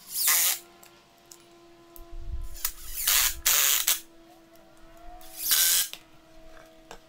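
Cordless impact driver sinking screws through a 2x4 bottom plate into the end grain of a workbench leg: three bursts of driving, the middle one longest.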